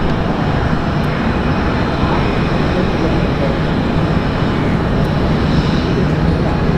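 Singapore Airlines Boeing 787-10 taxiing past, its twin jet engines at low taxi thrust giving a steady, loud rumble.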